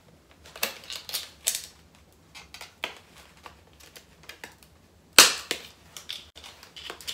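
Clear plastic lash trays being handled, giving a series of sharp plastic clicks and crackles, with one loud snap about five seconds in.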